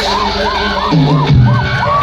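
A crowd of voices shouting and cheering in short repeated calls over music. It grows louder about a second in, as a deeper pitched sound joins.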